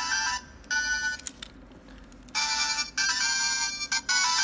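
1998 Tetsuwan Melody Wonder Flute toy's electronic sound chip playing a short beeping tune twice, with a gap of about a second between the two plays.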